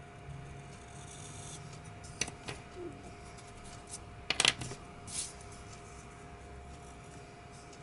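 Pencil scratching on paper, with a few sharp clicks and taps from pencils being handled and set down on a wooden desk; the loudest is a quick cluster of clicks about halfway through.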